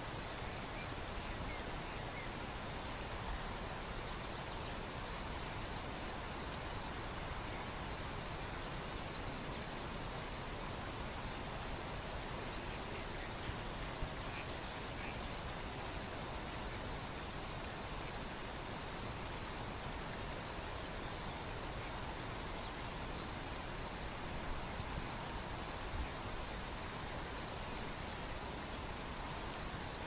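River water flowing steadily over a shallow, stony bed, an even rushing hiss, with a high, fast-pulsing insect chirring and a thin steady high tone over it.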